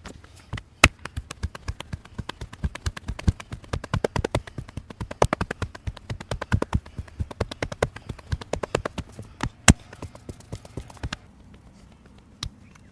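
Rapid, rhythmic hand slaps and taps of a barber's head massage, several a second, with a few sharper, louder smacks among them; they stop about eleven seconds in.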